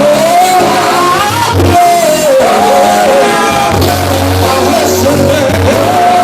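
A male gospel group singing a song, with a loud sustained lead voice, over band accompaniment with a steady bass line.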